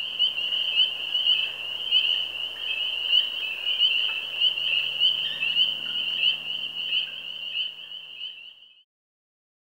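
Dense chorus of frogs calling at a pond, a high-pitched continuous mass of overlapping calls that fades out near the end.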